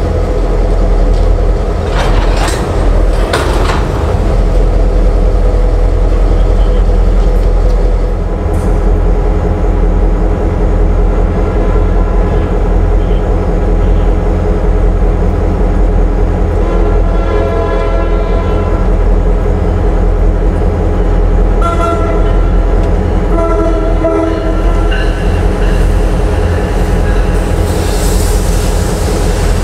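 A diesel freight locomotive rumbles steadily close by. Starting a little past halfway, a train horn sounds several blasts, one longer blast followed by shorter ones.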